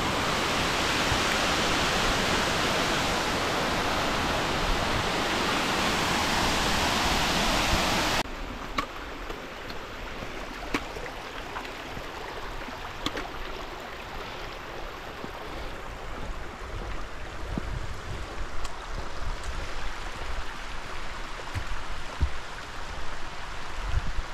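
Steady rush of running water that cuts off abruptly about eight seconds in. After it comes a quieter outdoor sound with scattered light clicks and low wind rumbles on the microphone, growing toward the end.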